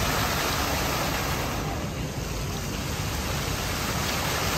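Musical fountain jets spraying and splashing water: a steady rushing hiss.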